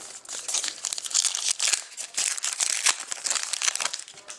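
Clear plastic wrapping crinkling and crackling continuously as hands handle it while opening trading-card packs.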